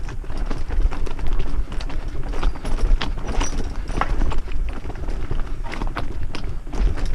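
Mountain bike riding over a rocky dirt trail: a constant low rumble with frequent irregular clicks and clatters from the bike jolting over stones.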